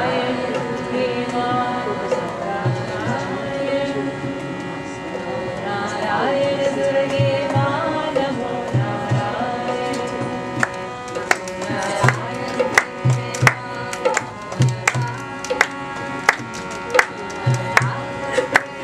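Devotional kirtan: a voice chanting over a steady sustained drone, with a hand drum keeping time in low thumps. From about halfway through, sharp drum strokes come in, more and more often.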